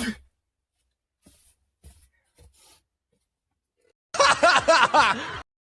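A short sharp burst right at the start, a few faint clicks, then about a second of pulsing laughter near the end.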